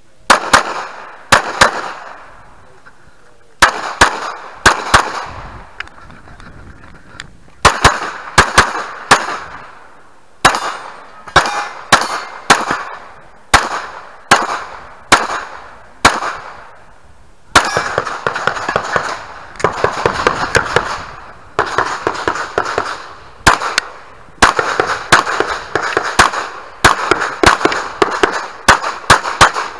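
Glock pistol firing rapid pairs and short strings of shots, with brief pauses between groups and quicker, denser shooting over the second half.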